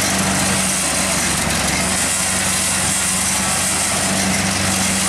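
Tracked rice combine harvester's engine running steadily at a constant speed as the machine is driven slowly down the ramps off the barge.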